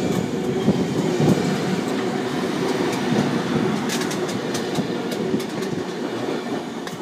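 Sydney Trains C-set double-deck electric train running through the station without stopping, its cars rolling close past, with a few sharp wheel clicks about four seconds in. The sound fades near the end as the last car goes by.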